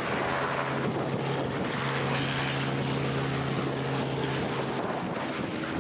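Small two-bladed light helicopter hovering low and turning on the spot under pedal input. Its rotor and engine give a steady drone with a constant low hum.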